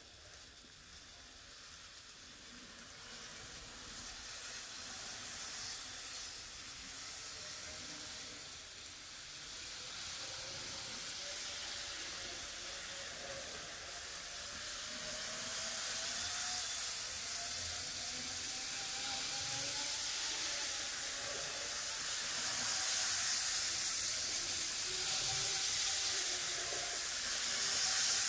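Model train running on plastic track: a steady hissing rolling noise with a faint motor whine that rises slowly in pitch partway through. It grows gradually louder.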